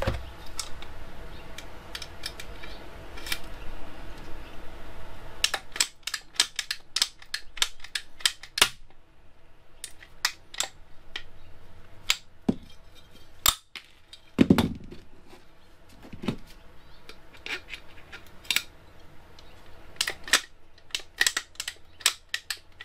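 Hand pop-rivet gun squeezed stroke after stroke, its jaws clicking in quick runs from about five seconds in, setting a rivet through a metal angle bracket; one dull thump about halfway.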